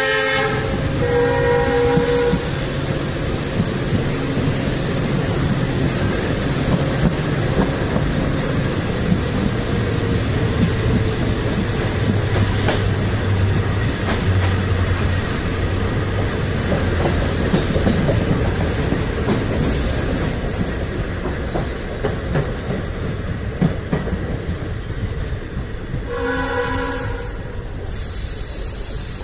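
Two passenger trains running side by side on parallel tracks: a steady rumble of coach wheels on the rails with clickety-clack. A train horn sounds for about two seconds at the start, and again briefly near the end.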